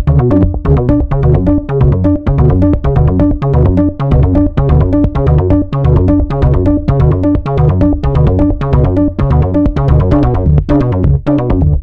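Electronic music with a steady, fast beat, heavy bass and synthesizer notes.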